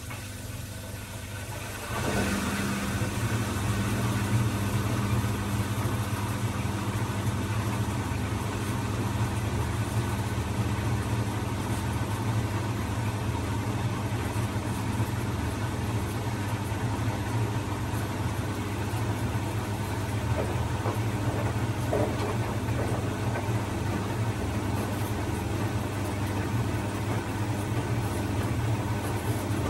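Bosch front-loading washing machine running, its motor turning the drum with the laundry in a steady low hum that gets louder and steadier about two seconds in.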